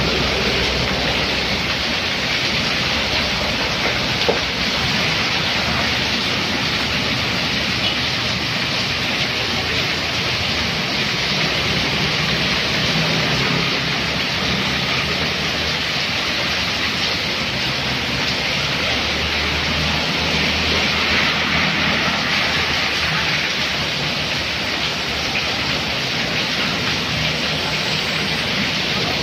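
Heavy rain pouring steadily onto a road and an awning, with motorbike and car engines passing through the water on the road beneath it.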